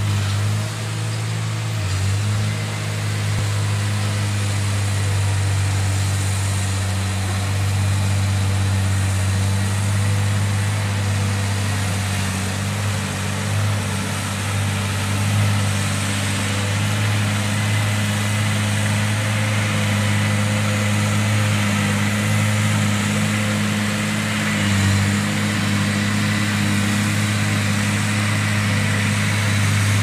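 Heavy diesel engines of a Cat D6D crawler bulldozer and a Hitachi Zaxis 200 excavator running at work, a steady low drone with only small dips in the engine note.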